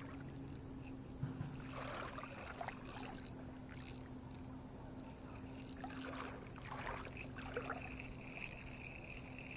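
Faint water lapping at the bank, with soft irregular splashes over a low steady hum.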